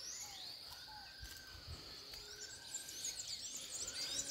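Birds singing outdoors: one repeats a thin, slightly arched whistle about every second and a half, with quick high chirps from other birds growing busier near the end, over a steady high-pitched insect drone.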